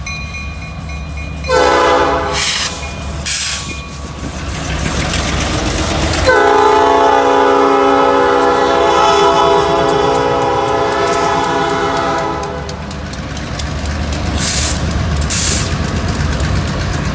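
Diesel freight locomotive horn blown for a road crossing: two short blasts, then one long blast of about six seconds, over the low rumble of the locomotives' diesel engines. Near the end the freight cars' wheels click steadily over the rail joints as they roll past.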